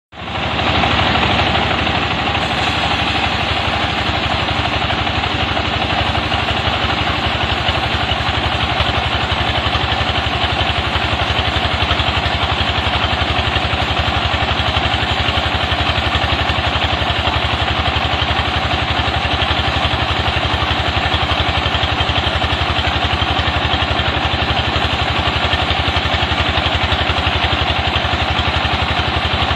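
Sawmill machinery running steadily: an engine-driven saw with a continuous loud mechanical noise and a fine, even engine pulse underneath, starting up within the first second and holding constant.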